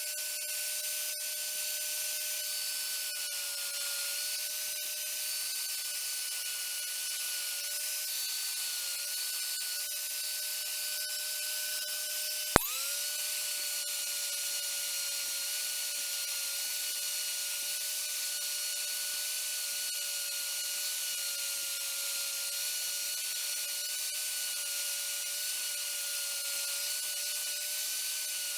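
A small high-speed power tool, such as a rotary tool, running steadily with a constant whine and a hiss. About halfway through there is a single sharp click, and the whine dips briefly before settling back to the same pitch.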